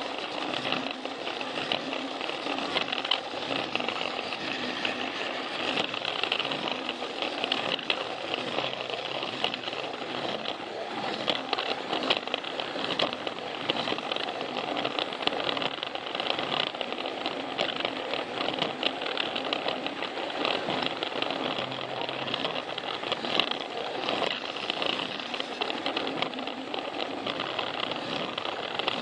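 Plarail toy train's small battery motor and plastic gearbox whirring steadily, with a fast, even patter of ticks as it runs along plastic track.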